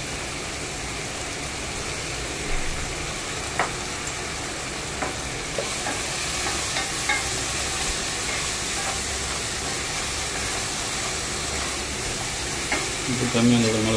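Julienned vegetables stir-frying in a nonstick pot: a steady sizzle, a little louder from about halfway in, with the spatula tapping and scraping against the pan now and then.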